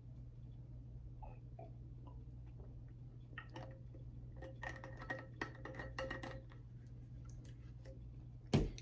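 A glass water bottle's metal screw cap being twisted shut: a run of small clicks with a faint ringing, over a steady low hum. Near the end comes one loud thump as the bottle is set down on the table.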